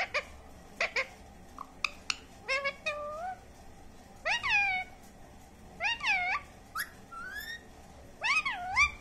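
Indian ringneck parakeet calling: a few sharp clicks in the first two seconds, then about five drawn-out calls that swoop up and down in pitch, the last the loudest.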